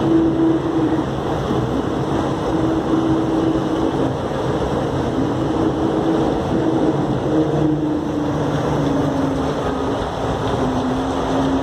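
DFW Skylink people mover running along its elevated guideway, heard from inside the car: a steady rumble of its rubber tyres on the concrete track under a motor hum whose pitch drifts and steps lower near the end.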